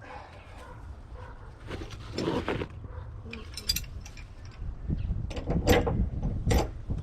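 Irregular knocks and scrapes of plumbing work: a threaded 90-degree pipe elbow being handled and turned onto a water heater's fitting by hand. The loudest knocks come in a cluster near the end.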